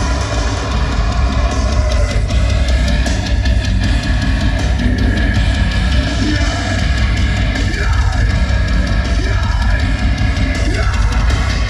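Live heavy metal band playing loud through a festival PA, with guitars and a drum kit over heavy bass, recorded from within the crowd.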